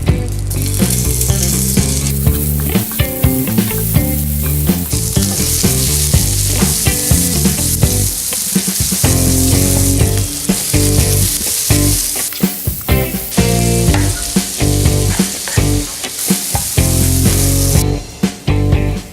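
Food sizzling and frying in a hot pan, in several stretches that start and stop abruptly, over background music with a steady bass line.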